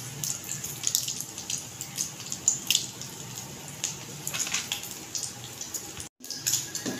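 Batter-soaked bread frying in desi ghee in a nonstick pan on a low flame: a steady sizzle with scattered crackles and pops. The sound cuts out for a moment about six seconds in.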